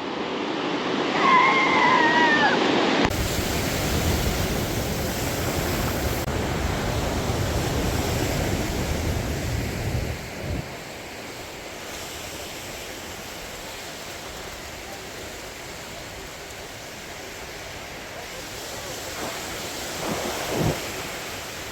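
Surf washing on the beach with wind rumbling on the microphone. The wind is heavy for the first several seconds, then eases after about ten seconds to a steadier, quieter wash of waves.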